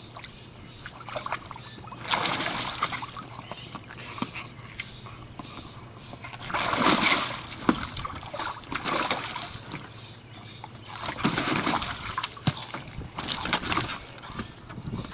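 Water splashing and sloshing in a plastic kiddie pool as a dog stomps and thrashes about with a boat bumper in its mouth, in about five louder bursts of splashing with quieter sloshing between.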